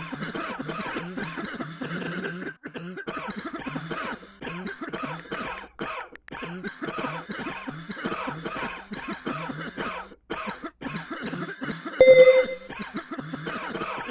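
A person coughing over and over in quick succession. A short, loud beep cuts in about twelve seconds in.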